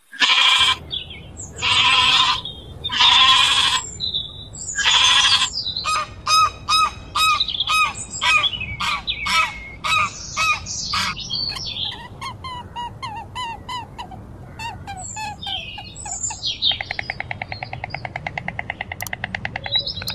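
Four long, loud calls in the first few seconds, then white domestic geese honking in many short, quick calls, then a fast, even rattle near the end.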